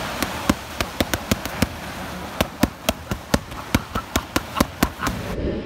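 Boxing gloves smacking focus mitts in rapid combinations: sharp slaps, several a second, in flurries. Behind them is a steady wash of waves breaking on the shore.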